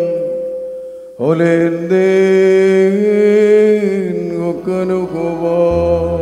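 A male voice chanting a Syriac Orthodox liturgical melody in long, held notes, with a slow fall in pitch near the end. A low steady tone joins in under the voice shortly before the end.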